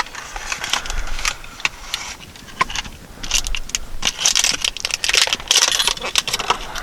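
Plastic and cardboard packaging crinkling and crackling with scattered sharp clicks as an electronic fishing scale's package is opened, busiest in the second half.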